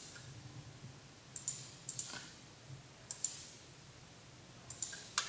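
Computer mouse clicking: a handful of faint, sharp clicks, several in quick pairs, while sketching in CAD software.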